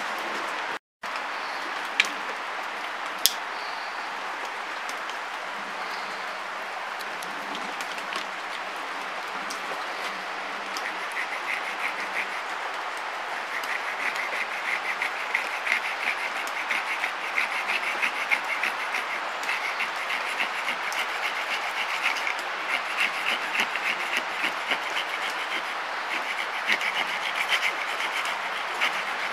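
Knife blade scraping a debarked sycamore stick into fine wood dust for tinder, in rapid short strokes several times a second that start about a third of the way in and keep going, over a steady background hiss. Two sharp clicks come early.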